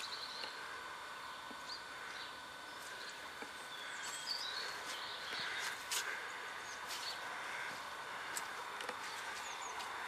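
Quiet outdoor background: a steady faint hiss with scattered small bird chirps and a few light clicks.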